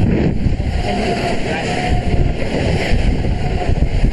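Electric multiple-unit passenger train rushing past close alongside, a steady loud roar and rumble heard from the open window of the moving train, with wind buffeting the microphone.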